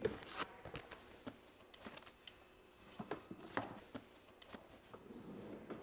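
Stacked paper sheets rustling and flicking as a hand leafs through them in a drawer: faint, irregular soft flicks and rustles.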